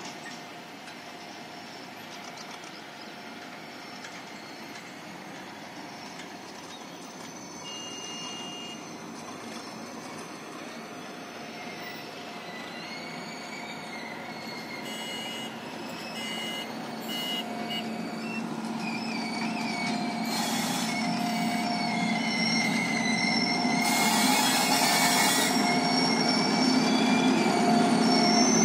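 Freight train hauled by an electric locomotive approaching, growing steadily louder, with a wavering high-pitched wheel squeal that sets in about halfway through.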